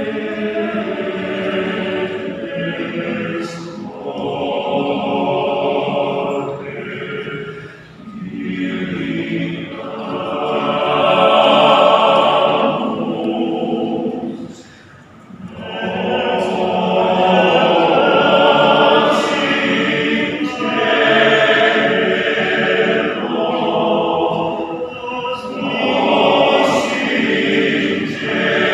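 Men's choir singing in parts, sustained chords in phrases of a few seconds, with short breaths between them and a longer pause about 15 seconds in.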